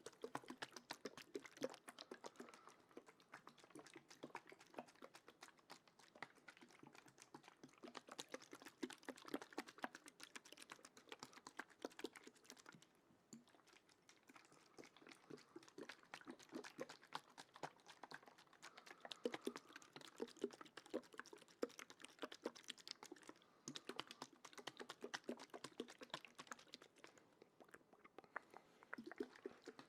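Faint close-microphone ASMR trigger sounds: a dense, continuous run of soft, rapid clicks and taps, easing off briefly a few times.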